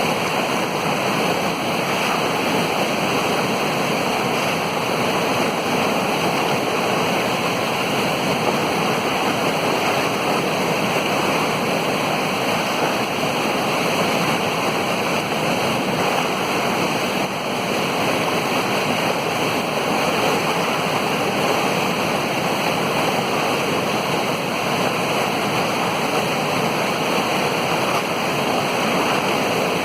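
Beas River, a fast mountain river, rushing and gurgling over rocks in a steady, unbroken roar of water.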